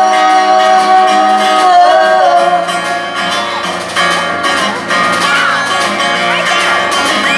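Live band music: strummed acoustic guitar with an electric guitar and a sung note held over the first two seconds, then a stretch led by the guitars.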